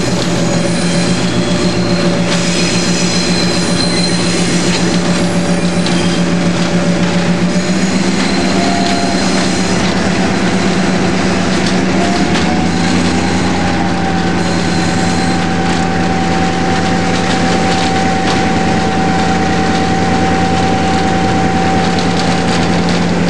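EMD diesel locomotive engine running steadily under way, heard from the cab window. A high, thin wheel squeal rings over it for the first several seconds as the train rounds a curve.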